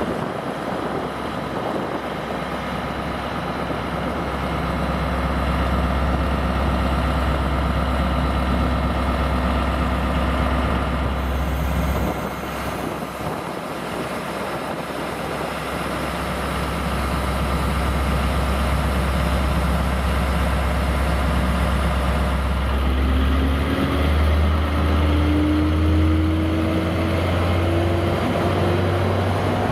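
Class 73/9 electro-diesel locomotive's diesel engine idling with a steady low hum. About two-thirds of the way in, the pitch starts to climb slowly as the locomotive powers up and pulls away.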